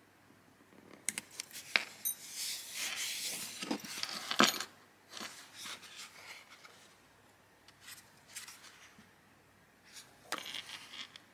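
A small Pith sketchbook of thick watercolour paper being handled: its cover and pages rustle and rub as it is opened and closed, with light taps and clicks. The loudest rustling comes about two to four and a half seconds in and ends in a sharp tap, with another cluster of clicks near the end.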